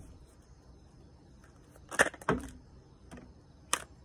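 Tarot cards being pulled from the deck and laid out: two sharp card snaps about halfway through, a fainter one, and another near the end.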